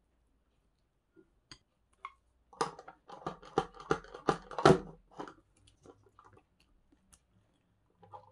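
Chopsticks and a wooden spoon mixing rice and vegetables in a ceramic bowl: a quick run of clicks and scrapes against the bowl starting about two and a half seconds in and ending around five seconds, then a few faint taps.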